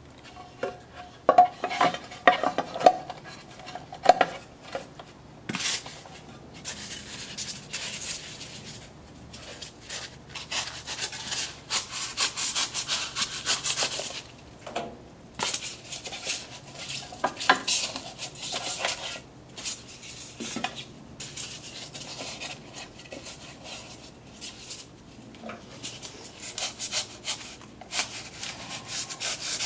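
Irregular scraping and rubbing strokes with pauses between them, and a few short ringing clinks in the first few seconds.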